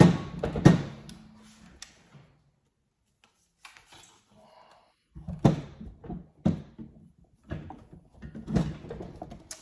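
Hands handling an air rifle and trying to fit an extended magazine onto it: sharp clicks and knocks of metal and plastic, loudest at the start, then a pause and a run of further knocks in the second half.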